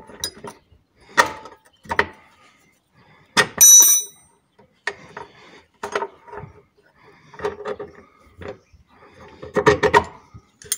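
Steel combination spanner working a rusty nut and bolt off an underbody bracket, giving irregular metal clinks and knocks. One hit rings out brightly about three and a half seconds in, and a quick cluster of clinks comes near the end as the bolt comes free.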